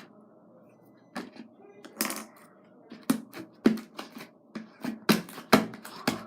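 Homemade slime being handled and squeezed, giving irregular sharp clicks and taps that come faster in the second half.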